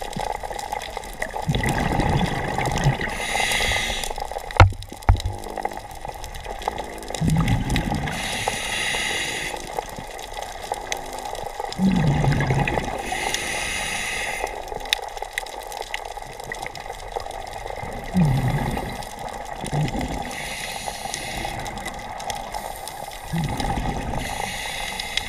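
Scuba diver breathing through a regulator underwater: a hiss on each inhale and a gurgle of exhaust bubbles on each exhale, about every five to six seconds. A sharp click about four and a half seconds in.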